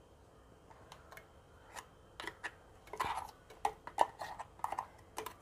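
Light clicks and taps of a utensil against metal vessels as coarsely crushed coconut paste is scooped into an aluminium pressure cooker. The taps begin about two seconds in, with the loudest a second later.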